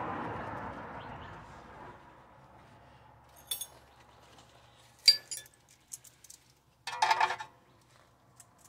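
Metal hand tools and hardware clinking as they are handled: a single clink, then a louder sharp clink a couple of seconds later, then a short rattle of several clinks.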